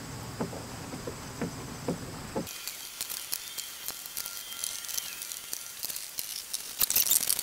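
Screws being hand-tightened with a Phillips screwdriver into an RV door window's inner frame: scattered faint clicks and creaks. About two and a half seconds in, a steady high hiss comes in, and the clicks crowd together near the end.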